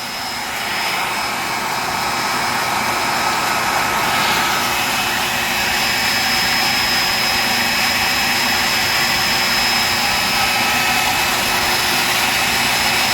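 Dumore tool post grinder running with a steady high whine as its small stone takes a light pass of a couple of thousandths across the hardened jaws of a slowly turning three-jaw lathe chuck, truing the worn, bell-mouthed jaws flat. It grows a little louder over the first couple of seconds.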